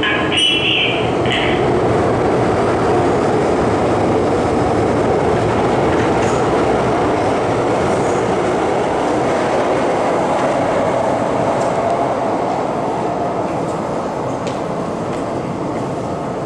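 Hong Kong MTR Island Line M-Train, an underground electric train, running through the station at speed without stopping, heard behind the platform screen doors. Its wheels and motors make a steady rushing noise that eases slightly near the end.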